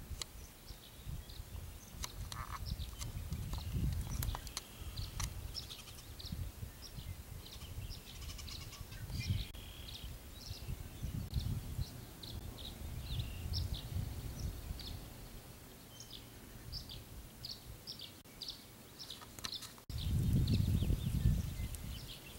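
Gusty wind buffeting the microphone, with many short high bird chirps scattered throughout; the wind rumble jumps louder after a cut near the end.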